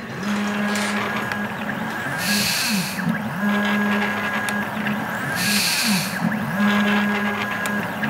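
Stepper motor of a DIY 3D-printed ventilator driving a squeeze plate against a plastic jug, set to 30 breaths per minute. It gives a steady whine that swoops down and back up in pitch each time the plate reverses. A short rushing noise comes about every three seconds.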